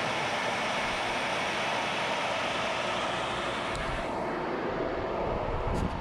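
Wood-Mizer LT15 electric sawmill running under power for a test: a steady whirring hiss from the electric motor and band blade. About four seconds in the whir drops away and a low rumble comes up, with a few sharp knocks near the end.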